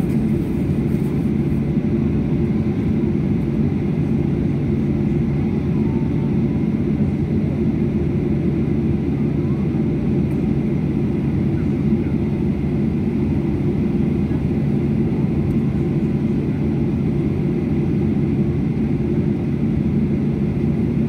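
Airliner cabin noise while taxiing: a steady low hum of the aircraft's engines and rolling, heard from inside the cabin, with a few constant tones and no change in level throughout.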